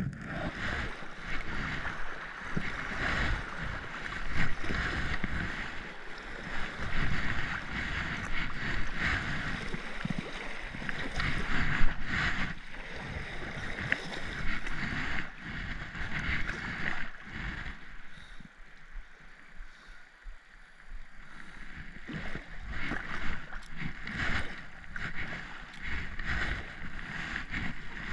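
Kayak paddle strokes splashing in river current, over a steady rush of water around the hull. The water sound eases for a few seconds about two-thirds of the way through.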